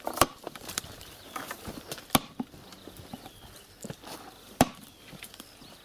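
Sledgehammer blows driving a wooden stake into an earthen dam: three sharp, loud knocks about two seconds apart, with lighter knocks and clatter in between.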